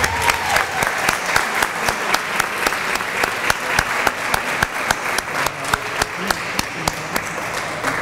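Audience applauding: many people clapping steadily, dying away near the end.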